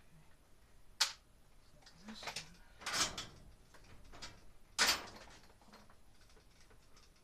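Handling noises from someone working with tools and hardware: a sharp click about a second in, rustling, a louder scrape around three seconds, then another sharp click near five seconds.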